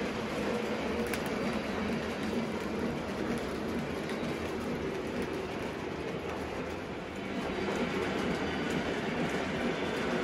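Model train running along its track: a steady rolling noise of wheels on rail.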